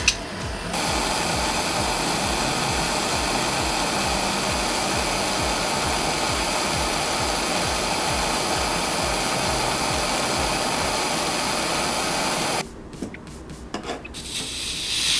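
Bernzomatic propane torch burning with a steady hiss as it heats a copper cap of solder, cut off abruptly about twelve seconds in. Near the end, a short scraping of metal pliers inside the copper cap.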